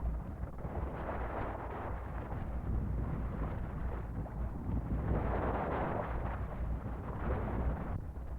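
Wind buffeting the microphone on a sailing yacht: a steady low rumble with a rushing noise that swells and fades, loudest a little past the middle.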